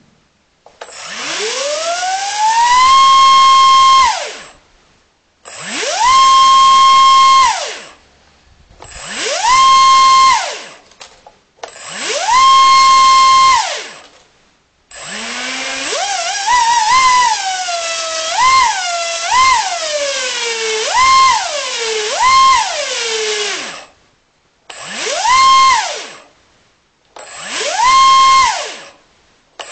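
Small electric model-aircraft motor spinning a 4.5 x 3.5 propeller on a static thrust test, throttled up into a high whine and cut again about seven times. The first run climbs slowly to full speed. The others snap up to a steady full-throttle pitch for a couple of seconds. One longer run in the middle is blipped up and down several times.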